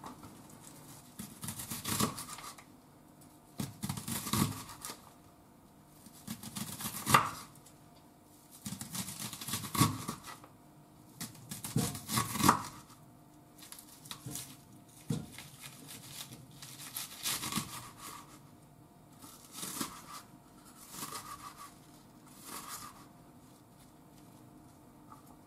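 Kitchen knife slicing a raw onion on a wooden cutting board, in short runs of crisp cuts every second or two with brief pauses between.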